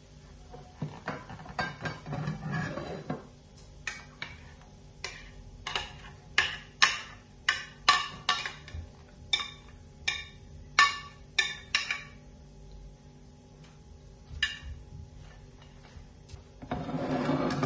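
A metal spatula scraping along a glass baking dish as baked cauliflower is lifted out, then a long run of sharp clinks and taps of the spatula against the dish and a ceramic plate as the pieces are set down. A short scrape comes again near the end.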